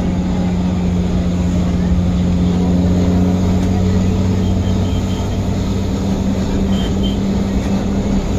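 Vehicle engine running with a steady, unchanging drone, heard from on board while moving.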